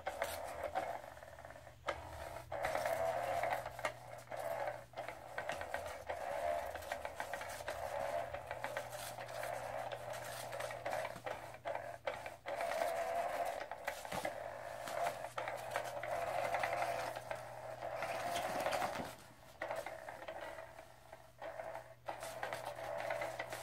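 Small electric motor of a Petlinks battery-powered hidden-feather cat toy whirring steadily as it drives the feather wand around under its fabric cover, with scattered clicks, dipping briefly a couple of times near the end.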